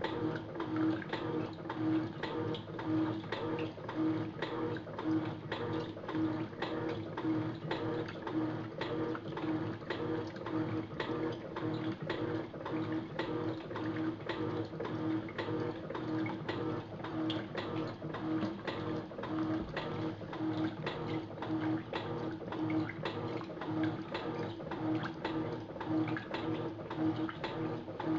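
Electrolux top-load washing machine running through its rinse: a steady motor hum with water sloshing and regular clicks about twice a second. The machine's bearings are blown, according to the owner.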